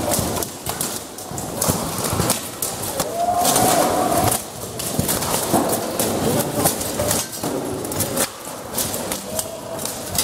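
Armoured melee: steel weapons and shields striking plate armour and helmets in a rapid, irregular run of metallic bangs and clanks, many fighters at once.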